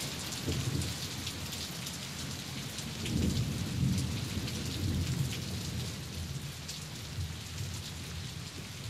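Steady rain pattering, with low rolls of thunder that swell between about three and five seconds in.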